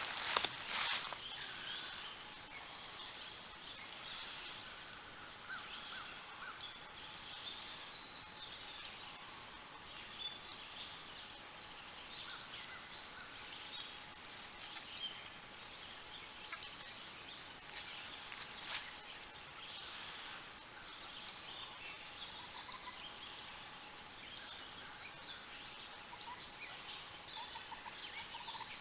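Songbirds calling and singing in spring woods: many short, high chirps and phrases scattered throughout, over a faint steady hum. A couple of knocks about a second in, and a run of quick repeated lower notes near the end.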